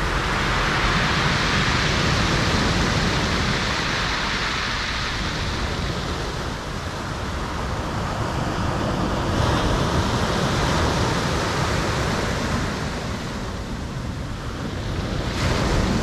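Black Sea surf breaking and washing in over a pebble beach: a continuous rushing that swells as each wave comes in, loudest about a second in, again around ten seconds in and near the end, and eases between waves.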